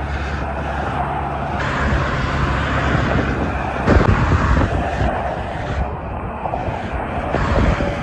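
Steady noise of heavy multi-lane highway traffic passing below: tyre hiss and engines of many cars and trucks, with a louder swell about halfway through.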